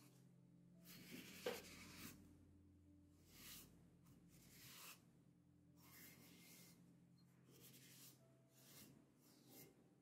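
Sponge wiping the inside of plaster slip-casting molds: a series of soft, irregular rubbing strokes about one a second, with one sharp knock about a second and a half in.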